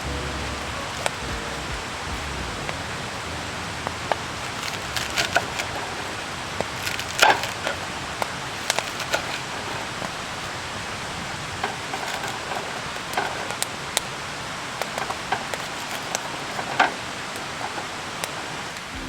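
Wood campfire crackling: a steady hiss of burning wood broken by irregular sharp pops and snaps, the loudest about seven seconds in.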